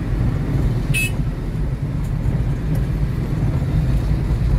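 Steady low rumble of the van's engine and tyres, heard from inside the cabin while driving in city traffic. A short high-pitched chirp comes about a second in.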